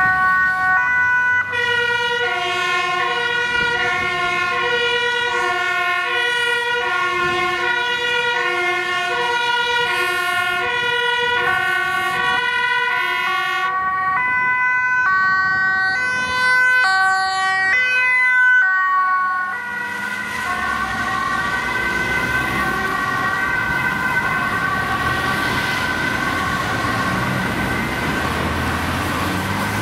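Ambulance two-tone siren alternating steadily between a high and a low note. About halfway through the tones change to a faster, choppier pattern. Then the siren continues more faintly under traffic noise as the ambulance moves off.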